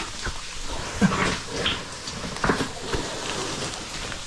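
A caver clambering through a wet cave passage: irregular scuffs, knocks and splashes, with a short falling grunt about a second in.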